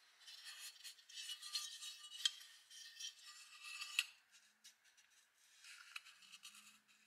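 Fingers rubbing and handling a freshly sandblasted metal toy truck body: a faint, dry scratchy rubbing with two light clicks, busiest in the first four seconds and sparser after.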